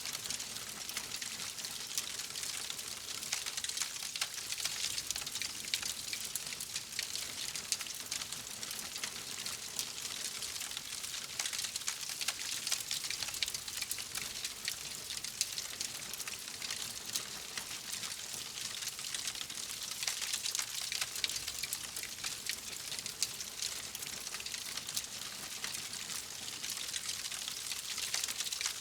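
Wood fire crackling: a steady hiss with many small pops and snaps throughout.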